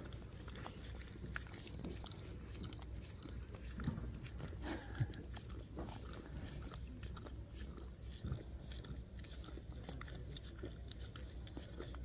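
A husky-type dog licking ice cream out of a hand-held paper tub: faint, irregular wet licks and small clicks of tongue against the cup, kept up steadily.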